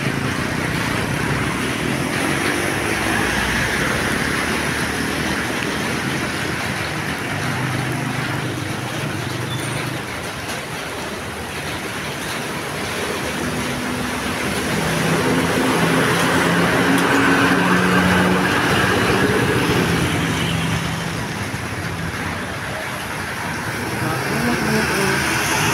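Road traffic with a large bus engine running as it passes close, growing louder about two-thirds of the way through and then easing, over a steady traffic hiss.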